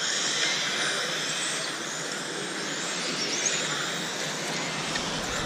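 Several 1/10-scale electric Tamiya RC touring cars racing round the track: a steady high whine of motors and gears with tyre hiss, pitch rising and falling faintly as cars speed up and brake.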